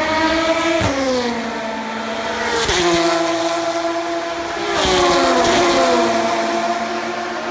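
Endurance race cars at full speed passing one after another, about three in turn; each engine note drops sharply in pitch as the car goes by.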